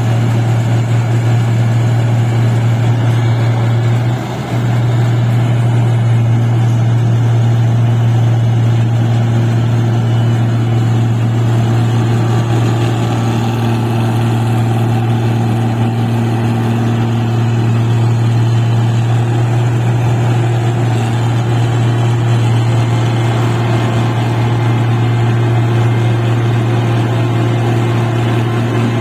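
Engine of a rice paddy machine running steadily with an even low hum, dipping briefly about four seconds in.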